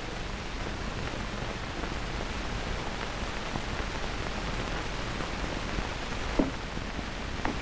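Steady hiss of an old film soundtrack, with two light knocks near the end as a pistol is set down on a wooden desk.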